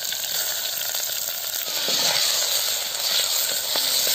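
Sliced onions sizzling steadily in hot groundnut oil in a clay pot, freshly added and starting to fry. A metal ladle stirs them near the end.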